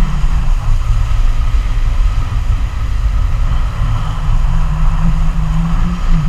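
Wind buffeting a camera microphone and water rushing past a banana boat being towed at speed: a steady, heavy rumble with a fainter hiss of spray.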